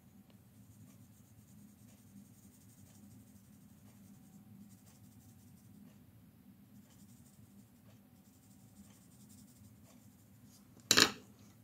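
Faint scratching of a watercolour pencil drawing on paper, with small ticks as the lead moves. About eleven seconds in, one short loud knock.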